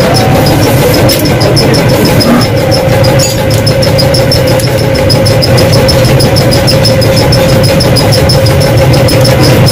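A motor-driven machine running steadily: a constant hum with a fast, even ticking of about six ticks a second.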